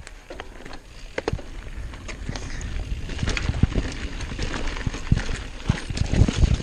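Mountain bike riding downhill on a dirt forest trail: tyres rolling over dirt and roots, with frequent knocks and rattles from the bike, over a rushing noise that grows louder about two seconds in as the bike speeds up.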